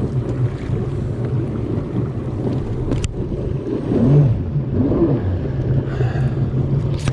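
Jet ski engine running at a steady idle, its jet pump clogged with seaweed, with wind buffeting the microphone. The pitch wavers briefly about four seconds in, and there is a sharp click about three seconds in.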